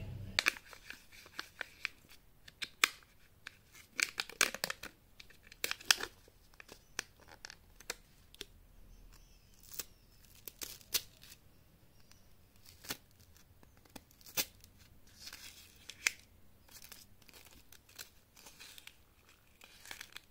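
Close-up handling of a Kinder Joy egg's plastic tray and foil lid: crinkling and tearing of the foil seal, sharp plastic clicks and taps, and a small plastic spoon scraping and crunching through the cream and cocoa wafer balls. Irregular crisp clicks come throughout, some much louder than the rustling between them.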